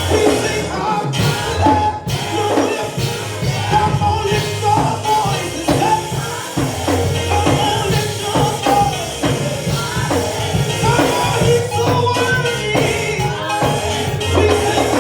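Live gospel praise music with a steady beat, bass and tambourine, with singing.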